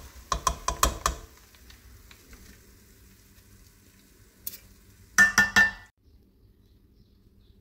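A slotted metal spatula clinks and scrapes through fried onions, with several quick knocks in the first second. About five seconds in come three or four ringing metal clanks against the rim of a metal cooking pot.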